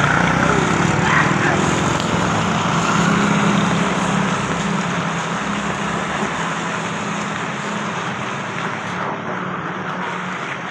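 Steady hiss of heavy rain with traffic, a vehicle engine humming low for the first few seconds before fading away.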